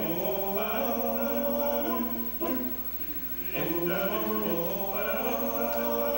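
Male a cappella vocal quartet singing long, held close-harmony chords. The chord breaks off for about a second midway, then comes back.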